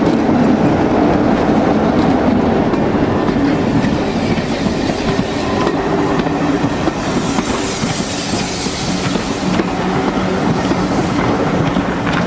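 A BR Class 33 diesel locomotive passing close, its Sulzer engine note fading within the first couple of seconds. Then its coaches roll past with wheels clacking over the rail joints, and a hissing rush builds about seven seconds in as steam blows out from beneath them.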